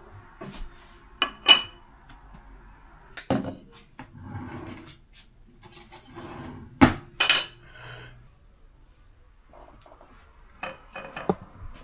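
Kitchen clatter of plates and cutlery: plates set down on a countertop and utensils rattled in a drawer, heard as a series of separate knocks and clinks with soft rustling between them. The loudest knocks come about seven seconds in, and a quick run of small clinks comes near the end.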